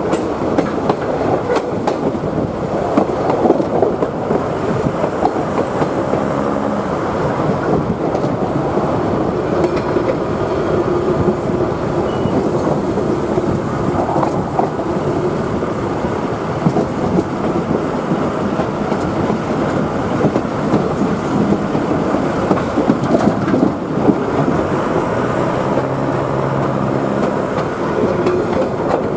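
A train running along the track: a steady rumble of wheels on rail, with at times a low engine hum.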